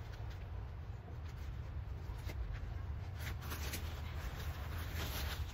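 Bagged garden soil pouring out of a plastic bag into a raised bed, a rustling, crinkling hiss that builds from about two seconds in, over a steady low rumble.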